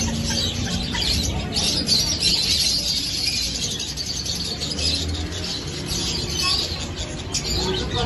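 Many small caged birds chirping and twittering at once, a dense, unbroken chorus of high short calls.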